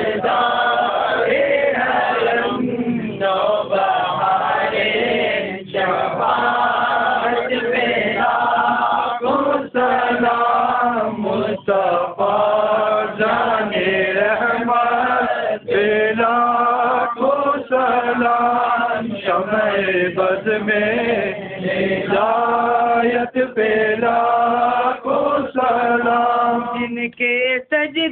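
A group of men chanting a devotional Urdu salaam to the Prophet together, in long sung phrases with brief breaks between them.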